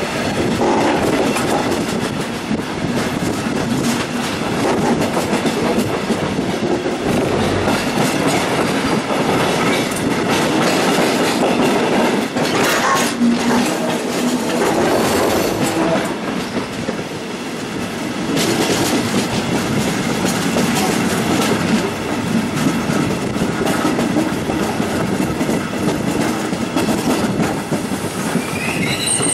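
Passenger train running slowly over the tracks, heard from aboard: a steady rumble with the wheels clicking and clattering over rail joints and points.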